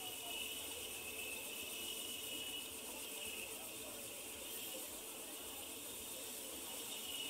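Helicopter on the ground with its main rotor turning, running steadily before lift-off: an even rushing hiss with a wavering high whine from the engine.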